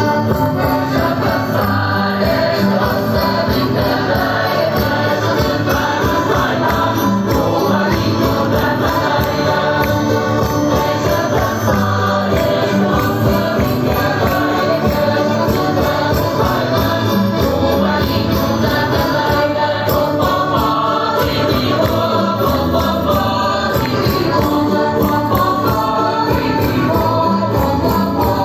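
Traditional Madeiran folk music with group singing, playing continuously at a steady level.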